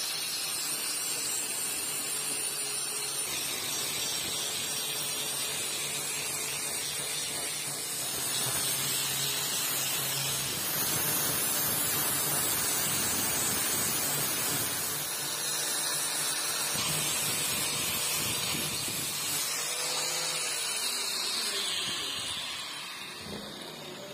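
Handheld angle grinder running with an abrasive disc pressed against the steel of an old axe head, a steady grinding hiss over the motor's hum as it takes the rust off down to bright metal. The sound dies away near the end.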